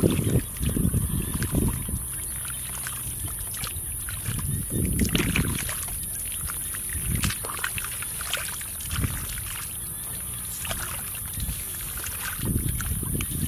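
Hands churning and scooping in a shallow pool of mud and water: irregular splashing and sloshing of muddy water, coming in separate bouts a few seconds apart, the heaviest right at the start and near the end.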